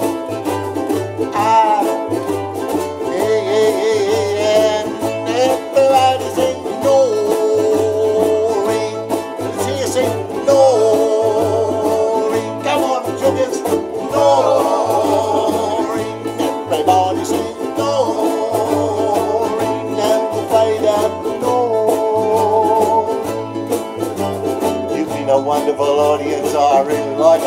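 Ukulele group strumming live over a steady, repeating bass line, with a wavering melody line above.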